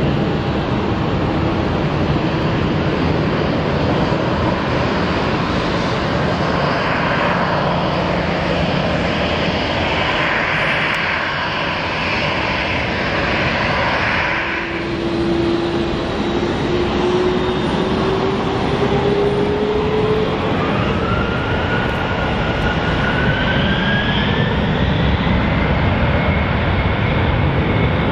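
McDonnell Douglas MD-11 trijet's engines running as it taxis onto the runway. About halfway through, a whine sets in and rises steadily in pitch as the engines spool up for the takeoff roll.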